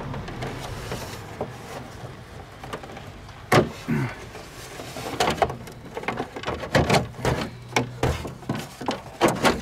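Plastic windshield cowl panel being pried up and worked loose by hand: its clips pop and the stiff plastic clacks against the body. One sharp snap comes about three and a half seconds in, then a run of clicks and knocks through the second half.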